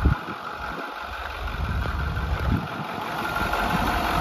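Diesel engine of a 2013 International TerraStar truck idling quietly and steadily, louder in the second half.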